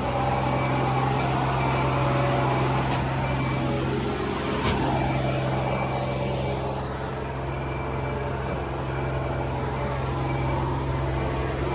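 Tractor engine running steadily at a constant low pitch, with one sharp click about five seconds in.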